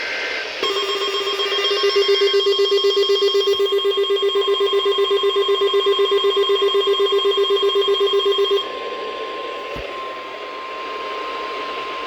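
NOAA Weather Radio alert tones announcing a flood alert. The end of the digital SAME header burst is followed by the steady 1050 Hz warning alarm tone. Over it a weather radio receiver's loud, fast-pulsing alarm sounds for about eight seconds, then cuts off, leaving the steady tone.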